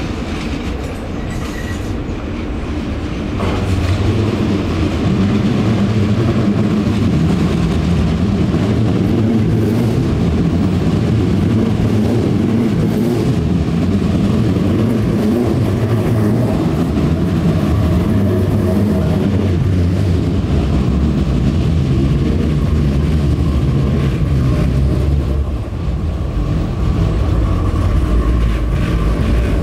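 Electric multiple unit passenger train running into the platform: a steady rumble of wheels on rail that gets louder about three and a half seconds in as the train comes alongside, with a brief dip near the end.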